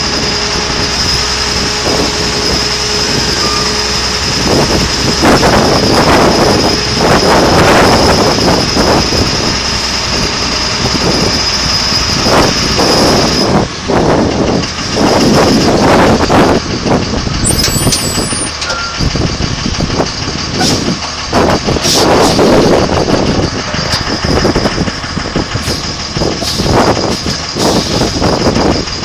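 Heavy truck running, with a steady high whine and several loud surges of noise, each lasting a second or more.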